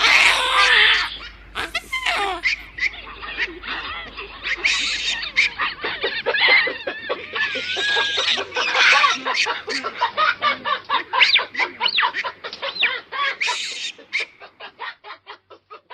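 Fowl-like bird calls: a dense run of short clucking and chattering notes, ending in a fast series of short clucks that fades out near the end.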